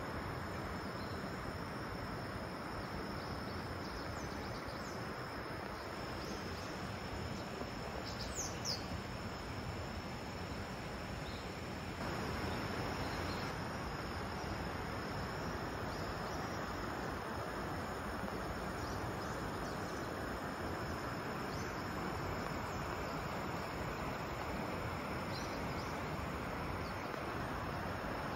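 Outdoor ambience: a steady rushing background noise with a continuous high insect drone over it. A few short bird chirps come about eight seconds in, and the rushing gets slightly louder about twelve seconds in.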